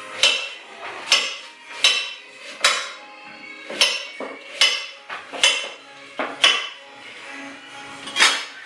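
Kitchen knife chopping raw pumpkin into chunks. Each cut ends in a sharp knock of the blade on the cutting surface, roughly one a second, with a pause near the end. Faint background music.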